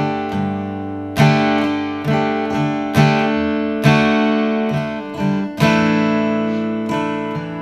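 Acoustic guitar strummed in a syncopated down-up pattern through the D, Gsus2 and Asus4 chords. The strums come about two to three a second with accented hits, and the chords ring between them.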